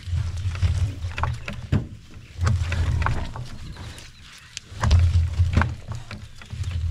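Gloucestershire Old Spot pigs grunting low in four bursts about two seconds apart while rooting, with light clicks and scuffs from snouts and trotters in the mud.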